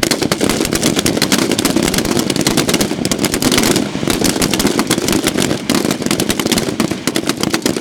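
A line of rifles firing at once: many rapid shots overlapping into a continuous crackle of gunfire as each shooter fires a failure drill from kneeling. The shots thin out slightly near the end.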